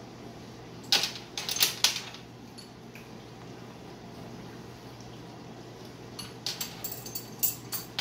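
A plastic spice jar of ground cinnamon being shaken and tapped over a plastic mixing bowl: two clusters of sharp clicks and taps, about a second in and again near the end. A steady low hum from a running dishwasher and fan sits underneath.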